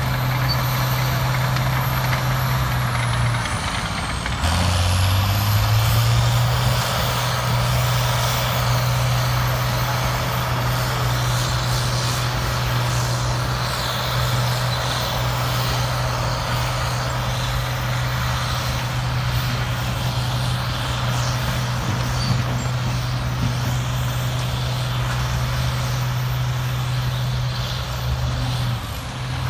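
Heavy diesel engines of a crawler bulldozer and a tracked hydraulic excavator running as they shift earth, a deep steady drone throughout. About four seconds in the engine note drops, then climbs back up over a second or two.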